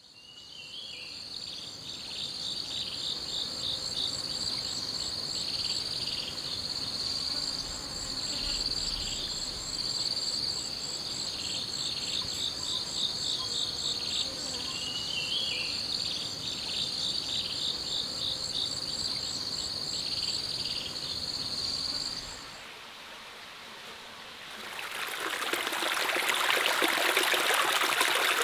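Forest insects trilling steadily at a high pitch, with a pulsing chirp over the top. They stop about three-quarters of the way through, and after a short lull a small stream is heard splashing down over rocks.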